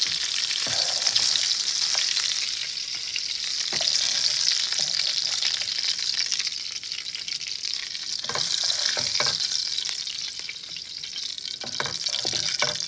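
Breaded bullhead catfish fillets sizzling in shallow canola oil in a frying pan, a steady hiss. A spatula knocks and scrapes against the pan a few times as the fillets are lifted out, in clusters about a second in, around four seconds, around eight to nine seconds and near the end.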